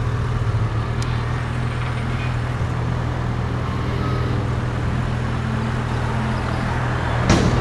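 Yamaha motorcycle engine idling steadily at a standstill, heard from the rider's helmet. A brief burst of noise comes near the end.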